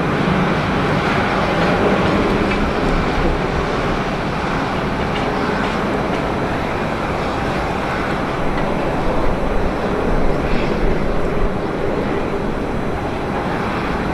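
Jet engine noise from an Airbus A350-941 airliner's Rolls-Royce Trent XWB engines: a steady, loud rushing sound that neither rises nor fades much.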